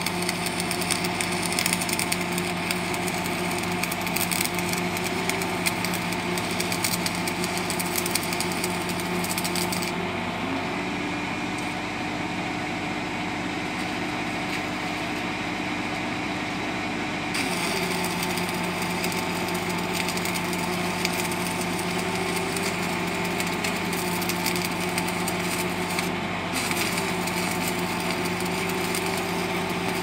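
Crackling, hissing arc welding at the steel splice joint of a concrete pile, over an engine running steadily. The crackle stops about a third of the way through for some seven seconds, then starts again.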